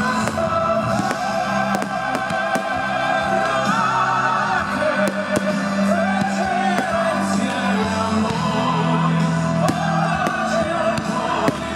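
Music with singing voices over a held low note, with scattered sharp pops of fireworks bursting.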